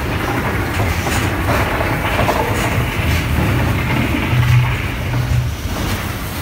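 Staged earthquake special effect: a loud, continuous rumbling and rattling, like a train rolling through, with no sharp crashes.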